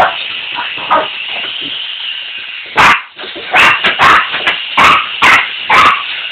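Jack Russell–Chihuahua mix puppies barking in a quick run of about seven sharp, high yips, starting about three seconds in, over a steady high hiss.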